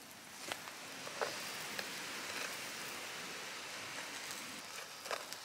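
Lamb and chicken kebabs sizzling on a wire grill over campfire coals: a steady hiss with a few sharp crackles.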